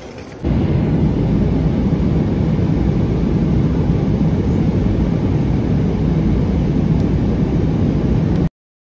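Steady cabin noise of an airliner in flight, a loud even rumble of jet engines and rushing air. It cuts off suddenly near the end. It starts abruptly about half a second in, after brief quieter terminal-hall ambience.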